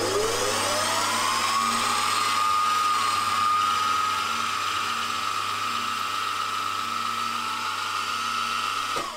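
WM18 milling machine spindle winding up to speed with a rising whine, then running steadily over a low hum while a spot drill cuts a hole in a metal plate. It is switched off near the end and the whine falls away as the spindle spins down.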